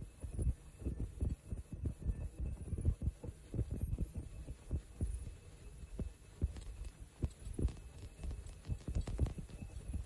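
Tie-on mask ultrasonic welding machine running: a quick, uneven series of low thumps from its feed mechanism, several a second, with a few sharper clicks.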